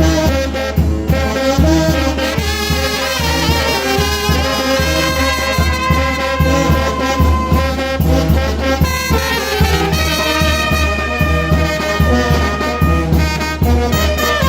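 A Mexican village brass band playing, with trumpets and trombones carrying the tune over a steady low beat.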